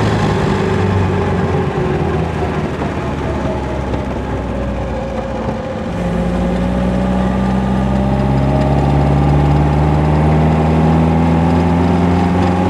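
1953 MG TD's four-cylinder XPAG engine pulling the car along the road. Its note sinks gently at first, dips briefly about six seconds in, then climbs steadily as the car speeds up. It runs smoothly with no pops or hiccups, its twin SU carburettors freshly timed and synced.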